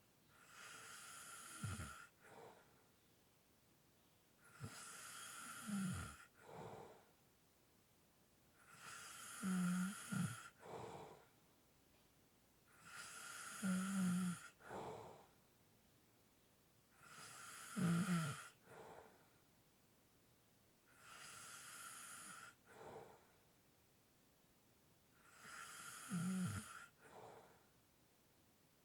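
A person snoring lightly: slow, even breaths about every four seconds, seven in all. Each breath is an airy hiss that ends in a short, low snore.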